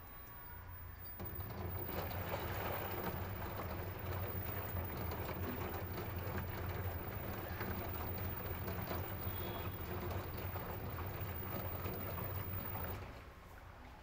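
LG washing machine's direct-drive motor running, its exposed rotor turning the drum. The motor starts about a second in, runs steadily with a low hum and a rushing noise, and stops about a second before the end.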